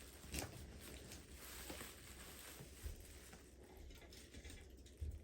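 Faint handling noises: a few light knocks and taps of small objects, the clearest near the end.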